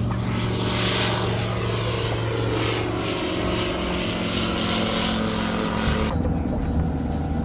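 A light-sport STOL bush plane's engine and propeller running at takeoff power as it lifts off and climbs away, heard over background music. The aircraft noise swells early and drops away about six seconds in.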